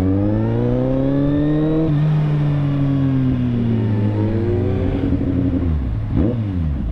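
Motorcycle engine revving up for about two seconds, then winding down slowly as it eases off; near the end there is a brief rise and fall in engine pitch.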